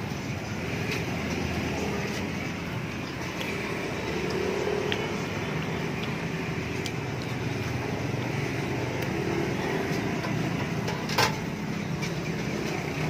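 Steady road-traffic noise, with a single sharp click about eleven seconds in.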